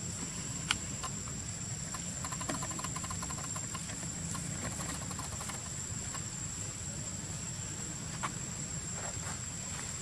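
Steady high-pitched insect drone, with crackly rustling of leaves in the middle as monkeys move through the undergrowth, and two sharp clicks, one near the start and one near the end.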